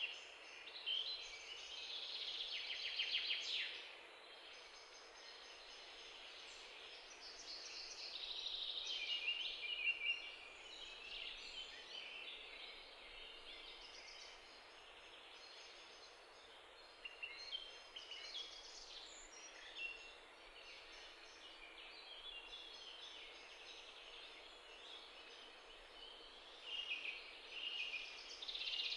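Small birds chirping and trilling in short, varied phrases, faint and on and off, over a light steady hiss.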